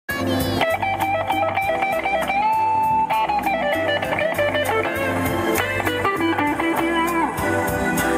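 Electric guitar playing a bluesy lead with bent, gliding notes over a steady beat.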